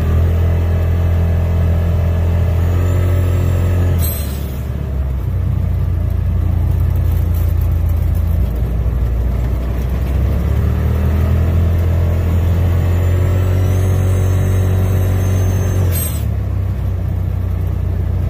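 A 2021 Polaris RZR XP Turbo's 925 cc turbocharged twin-cylinder engine pulling under load on a gravel road, with a whistling whine that rises in pitch twice. Each rise ends in a short hiss, once about four seconds in and again near the end. The owner takes the whine for a leak in the RPM Powersports blow-off valve, which he thinks is sticking partly open.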